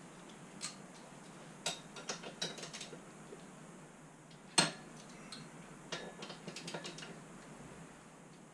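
Metal hand tools clicking and clinking during scooter repair work: short runs of quick clicks, with one sharper clack about four and a half seconds in.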